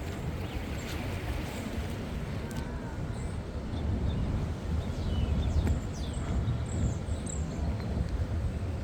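Outdoor waterfront ambience: a steady low rumble with wind on the microphone, and a few faint high bird chirps in the second half.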